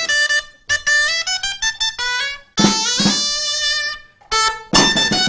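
Valencian dolçaina (folk shawm) playing a lively folk dance tune in short phrases with brief pauses, with a tabalet drum.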